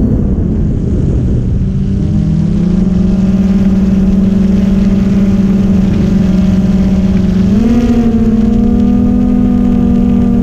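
Ambient background music: low sustained synth chords that shift to a new chord every few seconds with short sliding changes.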